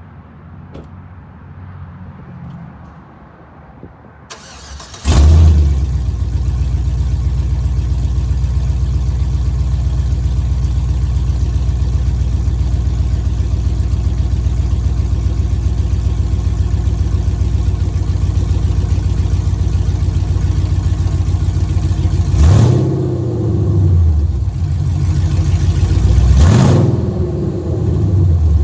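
Straight-piped GM 4.8-litre Vortec V8 with long-tube headers and the catalytic converters deleted, firing up about five seconds in and then idling loud and steady. Near the end it is revved twice, the pitch rising and falling each time.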